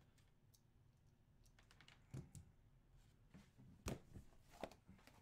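Faint, scattered light clicks and knocks of cardboard boxes being handled on a tabletop, with a few sharper knocks about two, four and four and a half seconds in.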